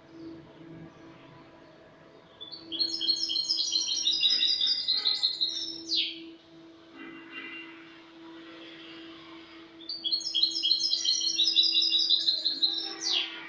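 European goldfinch (Spanish jilguero) singing its 'cante limpio' (clean song): two song phrases about four seconds apart, each a quick run of high notes that ends in a sharp downward-sweeping note.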